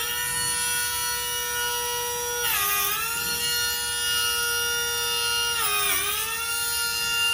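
Pneumatic nick grinder running with a steady high whine. Its pitch dips briefly twice, about two and a half and six seconds in, then comes back up.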